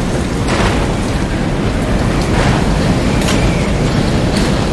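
A loud, continuous rumbling roar with sharp crashing hits every second or so, played as the sound of a hurricane's destruction.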